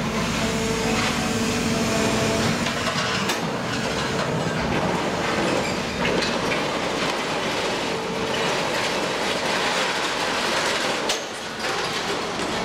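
Stationary scrap-handling crane working, its hydraulic drive humming steadily while its orange-peel grapple digs into a pile of scrap metal with continuous clattering and scraping of metal on metal. The clatter drops away briefly near the end as the loaded grapple lifts clear.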